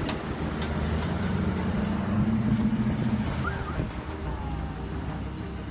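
Jeep Grand Cherokee engine running under load as it climbs a steep sandy slope on a recovery strap, revving up about two seconds in. Wind on the microphone.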